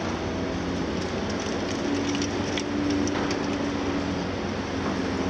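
Heavy diesel demolition excavators running steadily under load, with a humming drone that swells in the middle. Scattered crackling and clatter of concrete debris comes about one to three seconds in.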